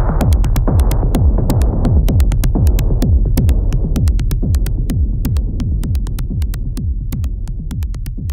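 Industrial techno: a steady electronic kick-and-bass pulse under rapid, sharp ticking percussion. The middle of the sound gradually darkens and the level slowly falls as the track winds down.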